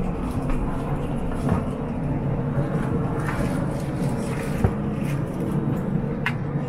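Steady low running hum of a vehicle interior, with scattered light clicks and a sharp knock about four and a half seconds in.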